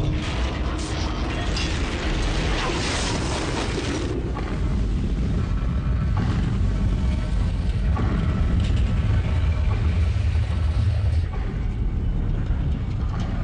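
Deep steady rumble with metal creaking and clanking, the sound of drilling-rig pipework and well equipment under strain. A hissing rush rides over it for about the first four seconds, then the rumble grows heavier.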